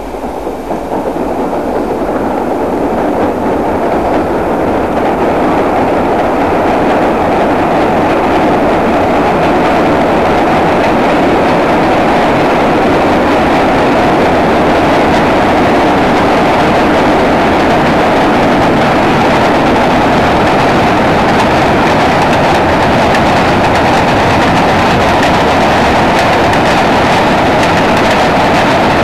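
Freight train of covered hopper cars rolling across a steel trestle bridge on jointed rail: a steady wheel-and-rail rumble that builds over the first several seconds and then holds, with clicks from the wheels crossing the rail joints coming through near the end.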